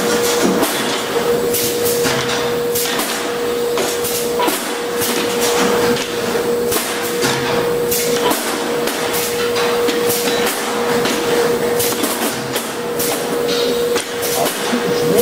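Pneumatic packaging machine running in its cycle: irregular metallic clacks and knocks, roughly two a second, over a steady mid-pitched hum.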